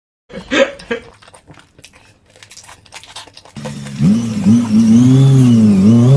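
Scattered faint knocks and clatter, then about three and a half seconds in a motor vehicle engine comes in loud, its pitch wavering up and down before it starts to rise steadily near the end as it revs.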